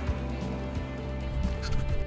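Background music with sustained low bass notes and scattered percussive hits.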